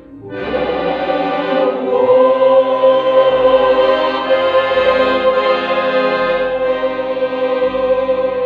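Mixed folk choir of women and men singing to accordion accompaniment. A new phrase begins about half a second in, after a brief breath, and settles into one long held note.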